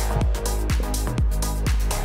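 Electronic dance music with a steady kick drum about twice a second.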